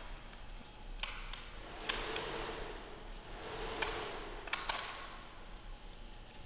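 Crinkly rustling of a woven net of foil and plastic strips being lifted and handled, swelling and fading every couple of seconds, with half a dozen scattered sharp clicks.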